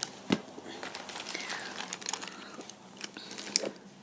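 Hands rummaging for a pen and picking it up: rustling with light clicks and knocks, a sharp knock just after the start and another near the end.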